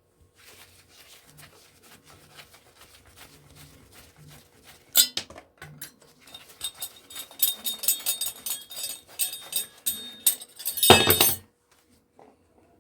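Screwdriver work on a hard drive: small metallic clicks and scrapes as screws are taken out. There is a sharp tap about five seconds in, a busy run of clinking metal parts, and a loud knock near the end.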